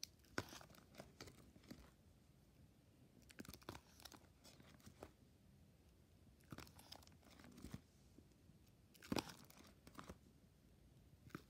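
Faint crinkling and rustling of plastic binder sleeve pages being handled and turned, in short scattered spells a few seconds apart.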